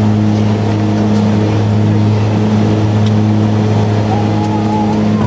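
Steady deep drone of the BAe Jetstream 31's twin Garrett TPE331 turboprop engines and propellers, heard from the cockpit. It is one low hum with evenly spaced higher overtones and a faint thin whine above it, holding level throughout.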